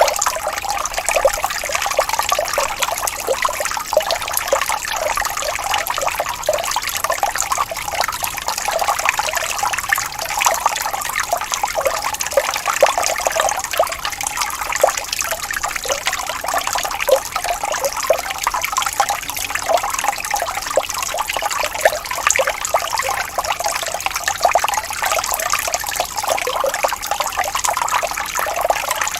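Running water of a gently rippling stream, flowing steadily with many small splashes.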